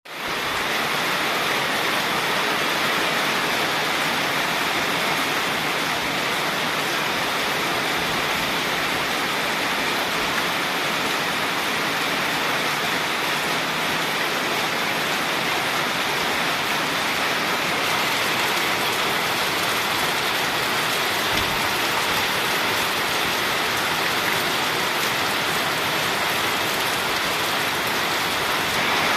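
Heavy rain pouring down steadily in a thunderstorm, an even, unbroken hiss of water.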